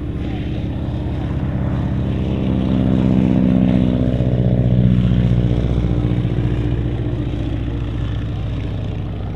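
Boeing Stearman biplane's radial engine at takeoff power, growing louder to a peak about four to five seconds in, then fading as the plane climbs away.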